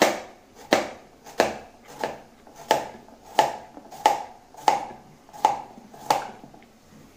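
Kitchen knife slicing a peeled cucumber into rounds on a plastic cutting board: about ten even chops, roughly one every two-thirds of a second, stopping near the end.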